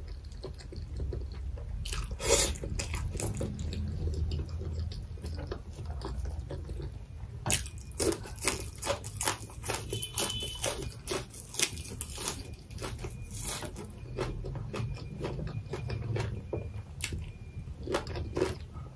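Close-miked eating sounds: wet smacking, sucking and chewing as meat is pulled off boiled goat-head bones and raw green stalks are bitten. The quick wet clicks grow dense about halfway through, over a steady low hum.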